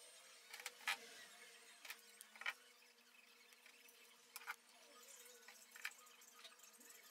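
Metal F-style bar clamps being set and tightened on a glued walnut frame: about six sharp, irregular clicks and knocks over a faint steady hum.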